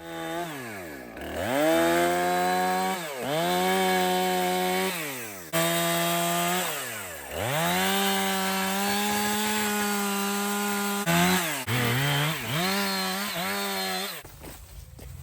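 Husqvarna 455 Rancher two-stroke chainsaw revved to full throttle and let drop back toward idle four times, then blipped quickly several times before falling quiet near the end, while cutting through old wooden fencing.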